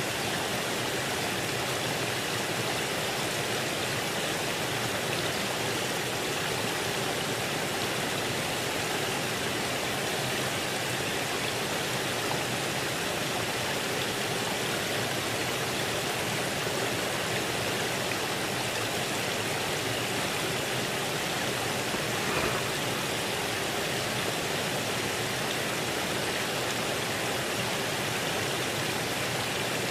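Steady rush of flowing water, an even noise that does not change, with one faint knock about two-thirds of the way through.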